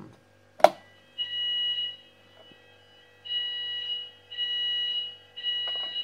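A sharp click, then a fire alarm siren sounding in steady high-pitched tones, four of them, each under a second long with short gaps between. The siren sounds because its timer switch has been set to permanent on.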